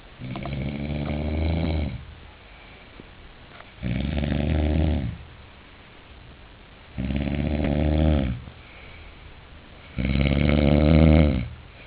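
A sleeping man snoring loudly: four long snores about three seconds apart, the last the loudest.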